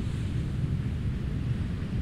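Ocean surf on a beach as a steady low rumble, with wind buffeting the microphone.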